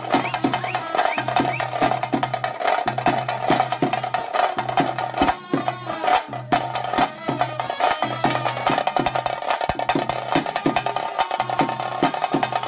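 Music with fast, dense drumming and a low bass note that repeats about once a second.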